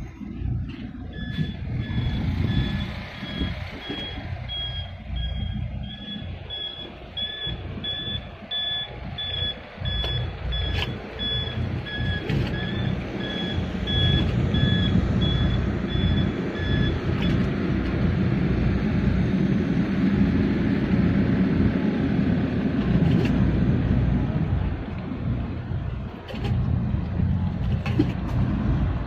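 A reversing-type warning beeper sounds steadily, about two short beeps a second, from about a second in until around 17 seconds, then stops. Under it a loud, low rumble runs throughout.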